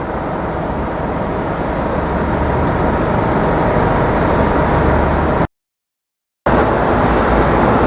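Steady rumble of city street traffic, with engines and tyre noise from passing vehicles. The sound cuts out completely for about a second a little past the middle, then comes back.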